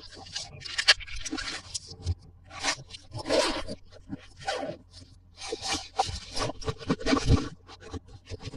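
Hands handling plastic toy parts and packaging: irregular scraping and rustling with a few sharp clicks, one loud click about a second in.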